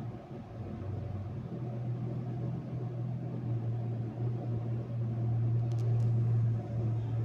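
2014 Volkswagen Jetta making a steady low mechanical hum that swells about a second and a half in and again near the end. This is presented as a typical fault of the 2014 Jetta. A few faint ticks come about six seconds in.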